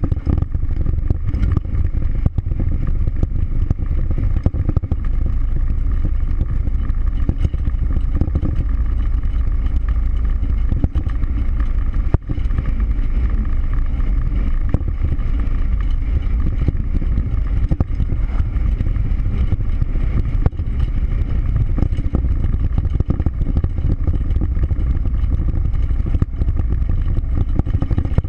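Jeep Wrangler driving at highway speed: a steady low rumble of engine, tyres and wind noise that holds even throughout.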